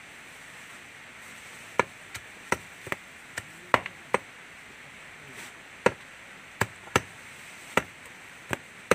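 A large kitchen knife chopping up a boiled Muscovy duck: about a dozen sharp, irregular chops, starting about two seconds in.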